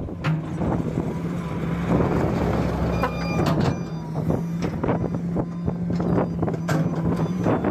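Heavy diesel engine running steadily, with repeated metallic clanks and rattles over it.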